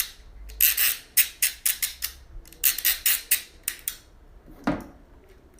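A ratchet cable cutter's ratchet mechanism clicking as the blade is stepped forward: a run of sharp metallic clicks, some in quick clusters, over about three seconds. A dull knock follows near the end.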